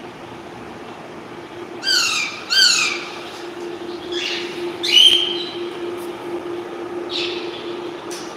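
Pet parrot calling about five times: two calls in quick succession about two seconds in, then three more spread out, the loudest about five seconds in, over a steady low hum.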